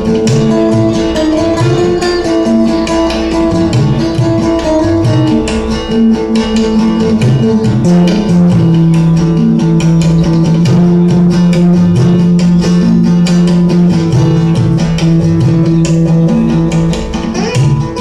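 Live band music from several guitars with tabla, playing a steady, even-paced passage with held guitar notes over plucked accompaniment.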